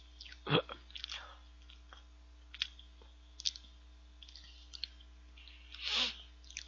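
A person chewing a mouthful of soft cheesecake close to the microphone: quiet wet mouth clicks and lip smacks, with a louder short sound about half a second in and a longer one near the end.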